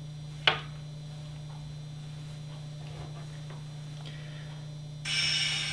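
Steady low electrical hum, with one sharp click about half a second in and a few faint ticks, small handling noises of earbuds and a phone. A brighter hissing sound comes in near the end.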